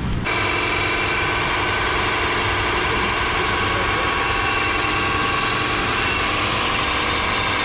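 An engine idling steadily: an even hum at one unchanging pitch that cuts in abruptly just after the start.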